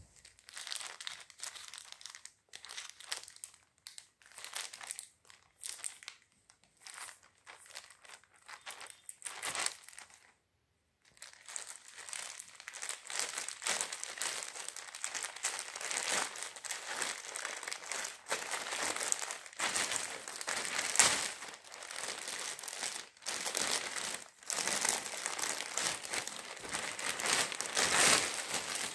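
Plastic courier mailer bag crinkling as it is handled and ripped open: short scattered bouts of rustling for about the first ten seconds, then, after a brief pause, almost unbroken crinkling with its loudest moments about two-thirds of the way through and near the end.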